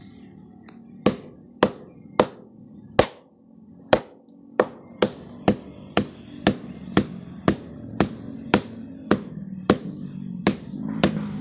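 Sharp, repeated knocks of a sugar palm's (aren) flower stalk being beaten, the first beating that readies the stalk for sap tapping. A few uneven strikes about a second in, then a steady beat of about two strikes a second.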